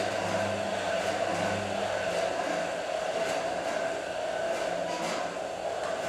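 Motor drive of a kinetic sculpture built from a washing machine, running steadily as it tilts and turns the machine body: a whirring drone with a low hum that comes and goes in the first two seconds, and faint clicks.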